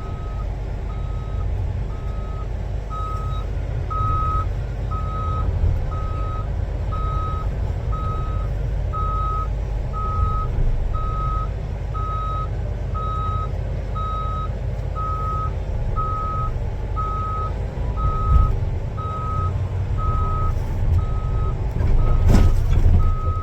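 Cat D8T crawler dozer's diesel engine running as the machine backs slowly up trailer ramps, its reversing alarm beeping steadily about once a second. Near the end the engine swells with a louder clunk as the dozer tips over the balance point onto the trailer deck.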